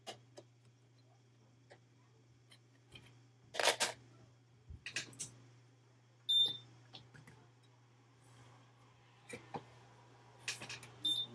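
Scattered clicks and taps from hands handling tape and tools on an electronics repair bench, over a steady low hum, loudest about three and a half seconds in. Two short high electronic beeps sound, one about six seconds in and one near the end.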